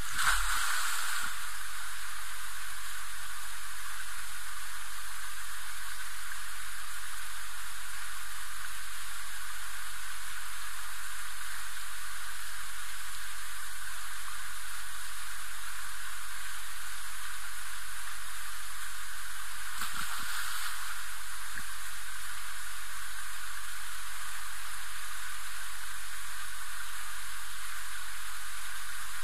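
A boy jumping into a swimming pool: a splash in the first second, then a steady hiss. A second, softer burst of noise comes about twenty seconds in.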